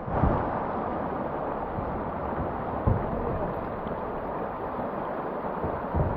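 Shallow river water running over rocky riffles, a steady rushing hiss, with three brief low thumps: just after the start, about halfway through, and near the end.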